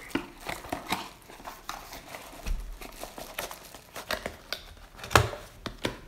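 Clear plastic bag crinkling and rustling with scattered clicks as a carbon monoxide alarm is packed back into its cardboard box, with one sharp knock about five seconds in.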